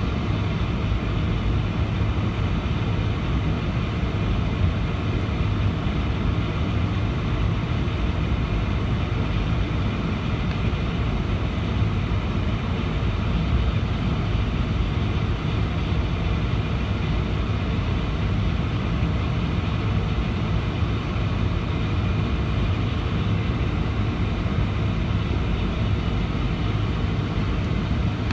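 Cabin noise of a Boeing 747-400 taxiing: its Pratt & Whitney PW4056 turbofans running at low taxi power, heard from a window seat over the wing as a steady low hum and rumble.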